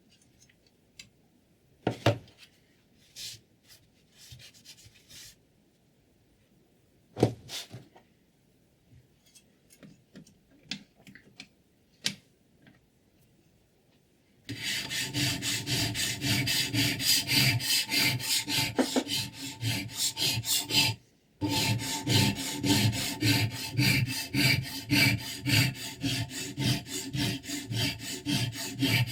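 A few scattered clicks and knocks, then from about halfway in a sharpening stone in a guided scissor sharpener stroked rapidly back and forth along a scissor blade, with one short break.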